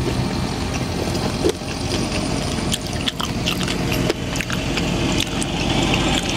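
Close-miked chewing of crispy fried pork belly, with many short crunching clicks scattered throughout, over a steady low hum.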